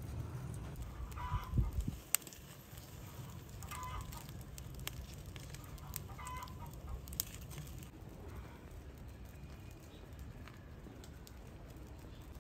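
Chickens clucking: four short calls about two seconds apart, with a few sharp clicks and a low steady rumble underneath.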